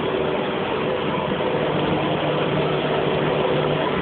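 A machine running steadily with a constant hum, over an even rushing noise.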